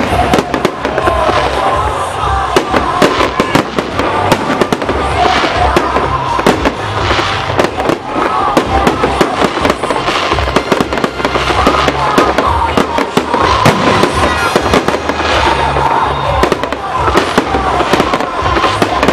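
A fireworks salute: shells bursting in a continuous rapid string of bangs and crackles with deep booms underneath, and music playing along.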